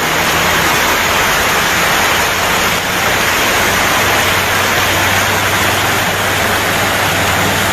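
Steady rush of floodwater as a small pickup drives through it, pushing up a bow wave, with a low engine hum that grows stronger about three seconds in.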